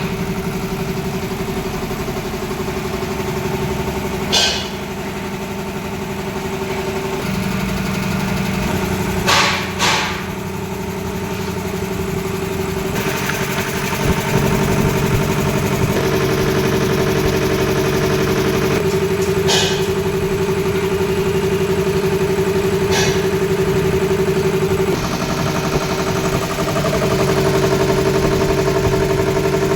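A 5 HP air compressor with a 300-litre tank running steadily with a constant mechanical drone. A few short sharp sounds rise over it.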